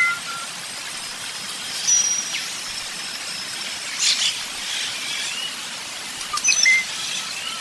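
Birds chirping and whistling: scattered short chirps and whistled notes, with a quick run of repeated notes in the first half second.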